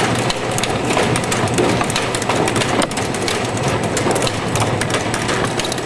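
Optical tomato sorter-sizer running: a steady mechanical hum with frequent quick clicks and knocks as tomatoes are carried through and dropped out of a sizing lane.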